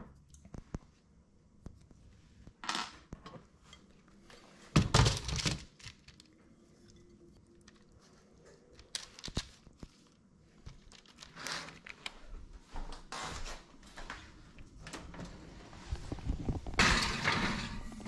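Kitchen handling sounds: a glass bowl and a metal sheet pan knocking and clinking while battered cauliflower florets are set on the parchment-lined pan. Near the end there is a louder, longer rattle as the pan goes into the oven.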